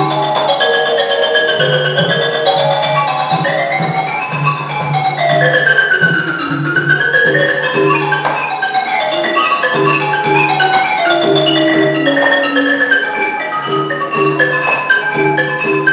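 Ranat ek, the Thai boat-shaped xylophone, played in fast running passages of notes that climb and fall. It is accompanied by a goblet hand drum (thon) and ching cymbals ticking a steady beat about twice a second.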